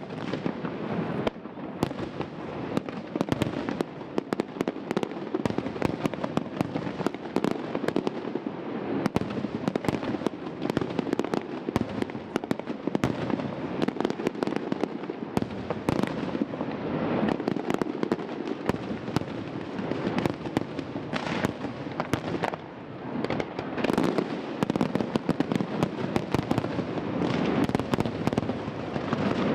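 Aerial fireworks display: many sharp shell bursts and bangs in quick, continuous succession over a constant crackling rumble.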